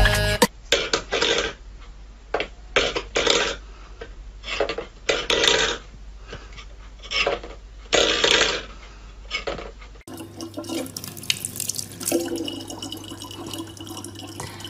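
Steel food bowls scraping and clattering on a wooden floor in short, irregular bursts. About ten seconds in, this gives way to a thin stream of tap water running steadily into a plastic bottle.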